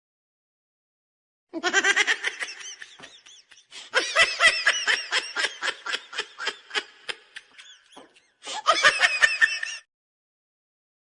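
High-pitched laughter sound effect, a rapid run of 'ha-ha' pulses that comes in three stretches, the middle one trailing off.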